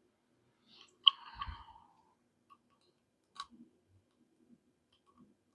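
Small clicks and light handling noises as a plastic spigot and rubber gasket are fitted to a stainless steel water filter container. A sharp click comes about a second in, with a brief rustle, and another click about three and a half seconds in.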